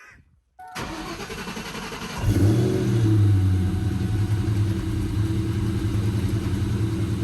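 Car engine cranking on the starter for about a second and a half, then catching about two seconds in with a brief flare in revs, and settling into a steady idle.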